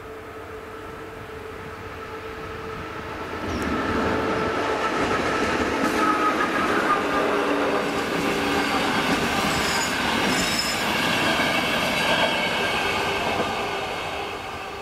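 A train passes over the level crossing. It builds up about three seconds in, stays loud for about ten seconds, then fades near the end, with high wheel squeal in the middle. A steady warning tone from the crossing signal runs underneath.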